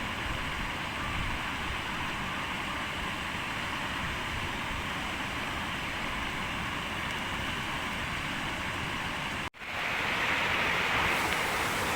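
Steady rushing noise with no clear rhythm or tone. It cuts out abruptly for an instant about nine and a half seconds in, then returns louder and brighter.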